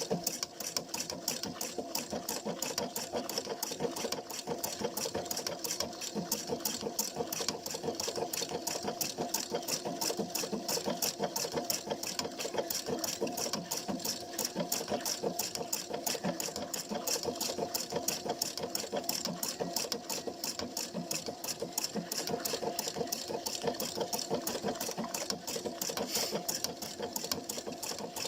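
PFAFF Quilt Expression 720 sewing machine stitching continuously, with a fast, even rhythm of needle strokes.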